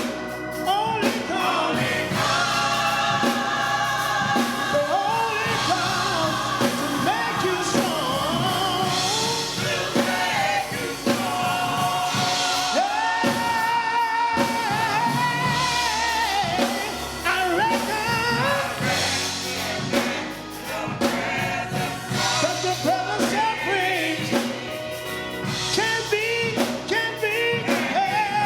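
Gospel song with singers and a backing band playing.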